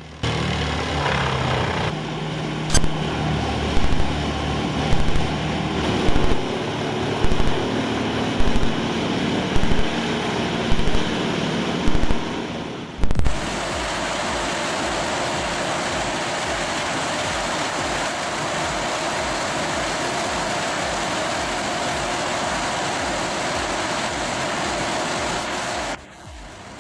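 Industrial wood chipper at work: its engine runs under load with a loud knock about once a second. About halfway through the sound changes abruptly to a steady, even machine noise that holds until shortly before the end.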